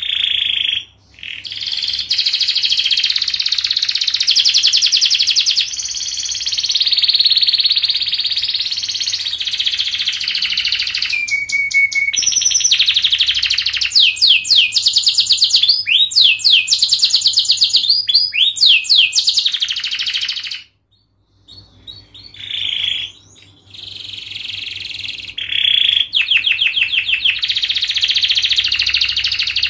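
Domestic canary singing a long, fast, unbroken song of rapid trills, rising sweeps and held notes, with a short pause about two-thirds of the way through. It is a dense, continuous 'gacor' song of the kind played so that young canaries learn it.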